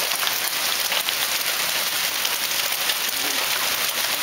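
Hailstorm: a dense, steady hiss of hailstones striking hard surfaces, scattered with many small sharp ticks.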